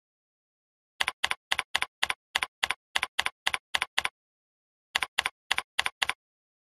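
Computer keyboard keystrokes at an even pace of about four a second. There is a run of about a dozen, a short pause, then about half a dozen more, with no other sound between them.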